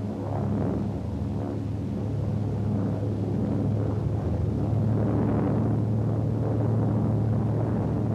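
Grumman TBF Avenger's Wright R-2600 twin-row radial engine droning steadily in flight, throttled back for a glide-bombing dive, growing a little louder after a few seconds.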